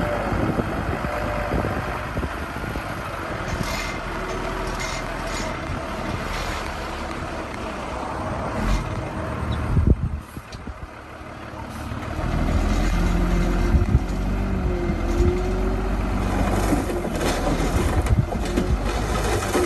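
Heavy diesel construction machinery running at work, with a sharp knock about halfway through. The sound then drops for a moment before a steady deep engine drone picks back up.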